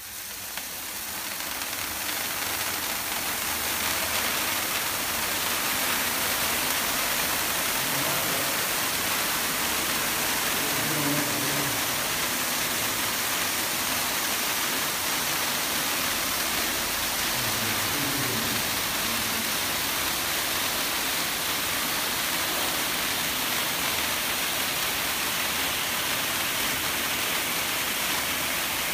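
Three coloured pyrotechnic fountains spraying sparks with a loud, steady hiss. The hiss builds over the first few seconds as the fountains are lit and then holds even.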